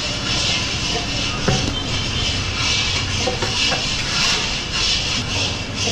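Electric wet grinder running: a steady motor hum under a hiss that swells and fades as the drum churns the sweet lentil filling, with one knock about a second and a half in.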